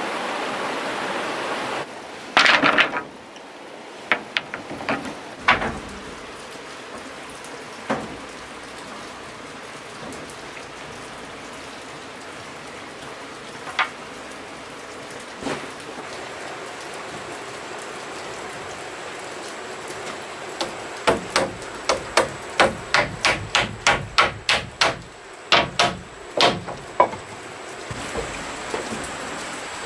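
Hammering on wood: a few scattered knocks, then a quick run of about a dozen hammer strikes at roughly two a second, over a steady hiss of background noise.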